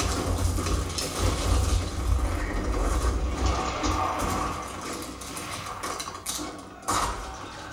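Film-style demo soundtrack: music mixed with mechanical sound effects over a heavy, deep bass rumble that eases off after about three seconds, with a brief sudden drop shortly before the end.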